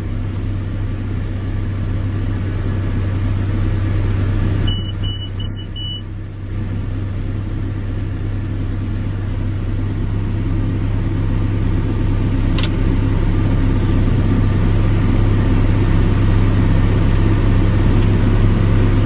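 Farm tractor running steadily while pulling a hay baler, a constant deep engine drone. About five seconds in come four quick, high electronic beeps.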